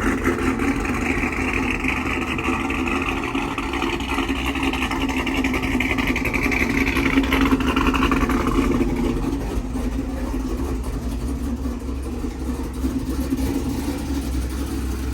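A pickup truck's engine running steadily at idle. A higher hiss over it fades away about nine seconds in.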